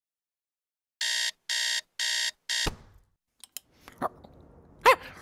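Alarm clock beeping four times, the fourth beep cut short by a thump. A few light clicks follow, and near the end a short, high, squeaky vocal sound.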